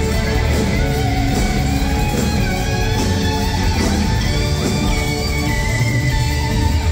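Live rock band playing, with an electric guitar carrying a lead line of sliding, bending notes over bass and drums.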